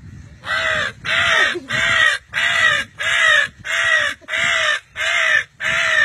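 A young man imitating a crow with his voice: a long run of harsh caws, about two a second, each rising and then falling in pitch.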